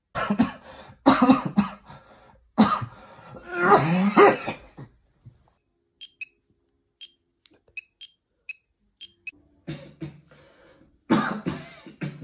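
A person left with lingering effects of COVID-19 coughing hard in several fits. In a pause about six seconds in, a run of short high electronic beeps about two a second comes from a fingertip pulse oximeter. Then the coughing starts again near the end.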